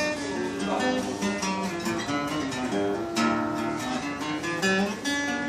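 An acoustic plucked string instrument played as a tryout, a melody of separate picked notes with some strummed chords.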